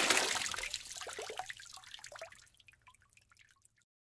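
Tail of a water-splash sound effect: the spray dies away into scattered drips that thin out and stop about three and a half seconds in.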